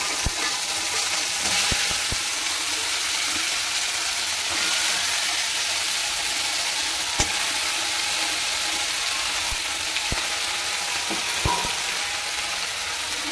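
Halved crab pieces frying in hot oil in a wok, a steady sizzling hiss with a few sharp clicks now and then as pieces go in and are moved about.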